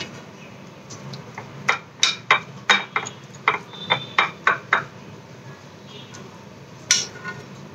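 Metal spoon clinking and tapping against a glass baking dish while spreading a thick spice paste: a quick run of about a dozen sharp clicks, then one more near the end.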